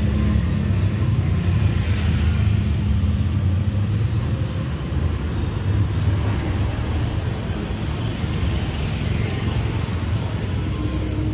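Steady low rumble of street traffic and engines.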